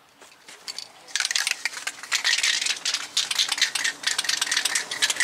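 An aerosol can being shaken hard, its mixing ball rattling rapidly inside. The rattling starts about a second in and keeps going.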